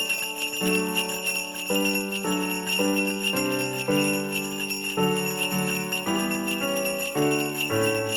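Background music: a simple tune of held notes over steadily shaken jingle bells.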